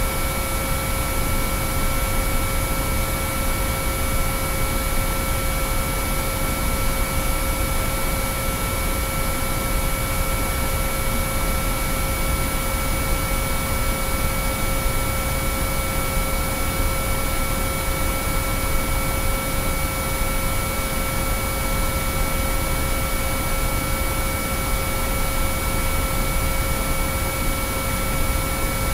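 Binaural-beat sine-wave track: several steady pure tones, some mid-pitched and some very high, held unchanging over a constant hiss of noise.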